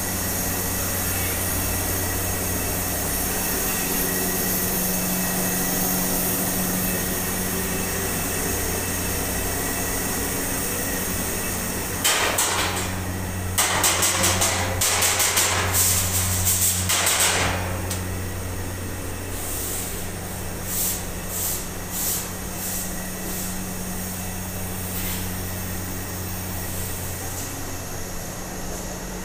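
Gas burners hissing steadily over a constant low electric hum. About twelve seconds in, a run of louder clattering and rustling comes in short bursts for several seconds, followed by a few scattered knocks.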